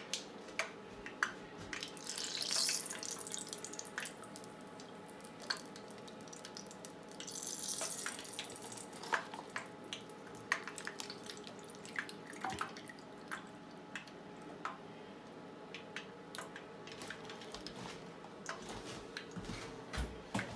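Dried chili peppers frying in hot oil in a small saucepan: scattered crackles and pops over a faint sizzle, with two short spells of louder hissing about two and seven seconds in.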